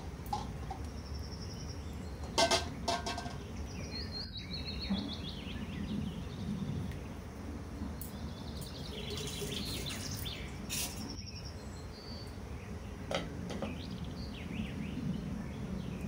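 Pan of water boiling with a steady low bubbling, with a few sharp clicks and knocks of cookware, the loudest about two and a half seconds in. Birds chirp now and then in the background.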